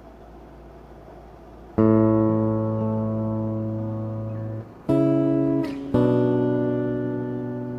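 Acoustic guitar strumming three chords, about two, five and six seconds in, each left to ring out and fade, after a short stretch of faint hiss.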